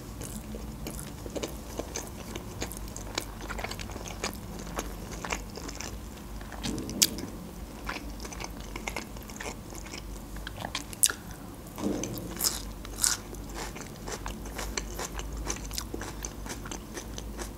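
Close-up chewing and crunching of food, with many small, sharp, wet mouth clicks. The food is raw salad vegetables, including red onion.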